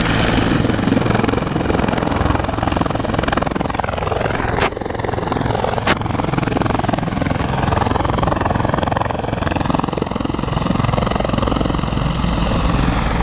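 Helicopter close by with its rotors chopping steadily and its engine running loud: an air ambulance coming in to land. Two sharp clicks about five and six seconds in.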